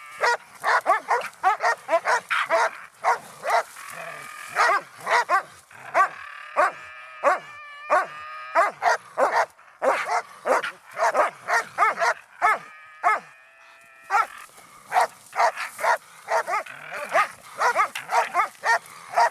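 Young Russo-European Laika barking rapidly and repeatedly as it bays at a raccoon, several sharp barks a second. A longer, drawn-out cry comes about twelve seconds in.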